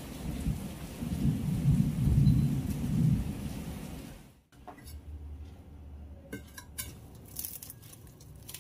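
Steady rain with a low rumble of thunder that swells about a second in and dies away by about four seconds, then stops abruptly. In the second half, cling film crinkles and crackles as it is stretched over a stainless steel bowl.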